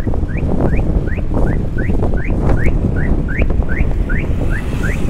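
A bird's short rising whistled notes, repeated about three times a second, starting just after the beginning, over steady wind noise on the microphone, which is the loudest sound.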